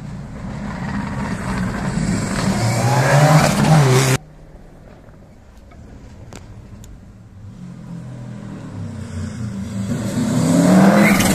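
Rally car engines at racing speed: one car approaches, revving up and down through gear changes, and its sound cuts off suddenly about four seconds in; a second car then approaches and is loudest near the end as it comes through the chicane.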